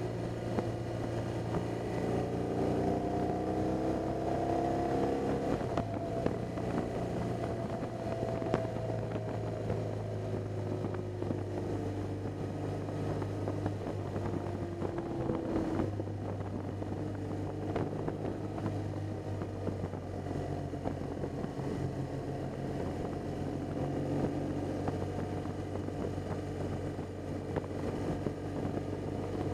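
BMW R 1200 GS boxer-twin engine running as the motorcycle is ridden, its pitch gliding up and down with throttle and gear changes in the first few seconds and again about halfway through. Wind rushes over the bike-mounted microphone.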